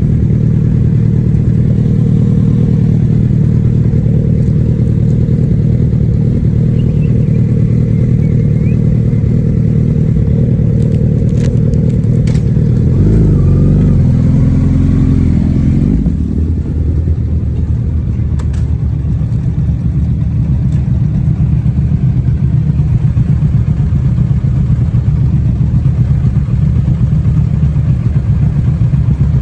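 Kawasaki ZX-10R's inline-four engine on its stock exhaust, running steadily under way. Its note shifts about halfway through as the revs change, then settles into a steady run again.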